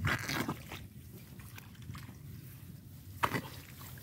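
Hands groping through wet rice plants and mud at the mouth of a field-crab burrow: rustling and wet squelching, loudest in the first second, with one sharp rustle about three seconds in.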